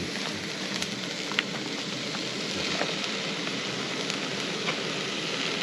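Pork and onions frying in pans on portable gas cartridge stoves: a steady sizzle with a few small pops and crackles.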